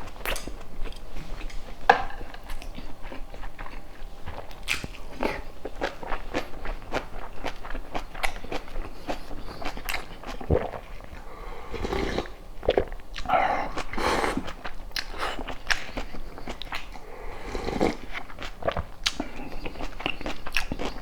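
A person biting and chewing food close to the microphone, with many short wet clicks and smacks at an irregular pace. About twelve seconds in, the eating sounds grow denser and louder for a few seconds.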